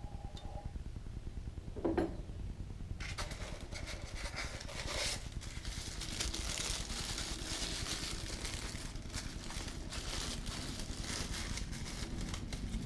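Packaging and small model parts being handled and unwrapped: from about three seconds in, steady rustling with many small clicks, over a low hum.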